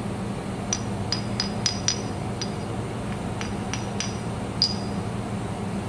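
Metal pieces clinking and tapping together, about ten short ringing knocks spaced irregularly, over a steady low machine hum.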